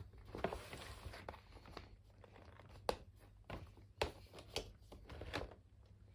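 Small objects being handled at close range: scattered clicks and knocks with rustling between them, the sharpest about three and four seconds in.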